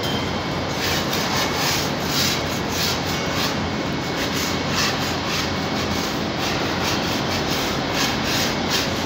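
Paint rollers on long poles rasping across a ceiling in repeated irregular strokes, about one or two a second, starting about a second in, over a steady background rumble.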